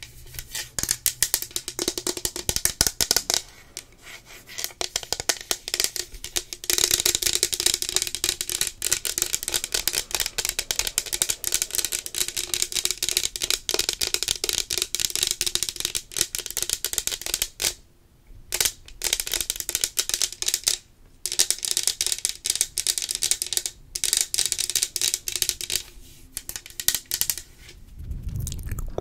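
Long fingernails tapping fast on a tumbler cup, a dense run of crisp clicks. There is a quieter stretch a few seconds in and a few short pauses later.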